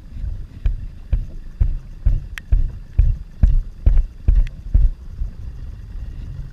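Small waves slapping against a small boat's hull in quick, uneven low thumps, about two a second, easing near the end, with a few sharp clicks mixed in.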